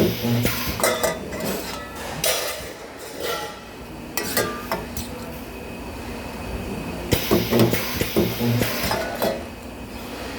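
Metal parts clinking and knocking in clusters of quick strikes, near the start, about four and a half seconds in, and again from about seven to nine seconds in, with brief low hums among the knocks, as at a spot-welding station.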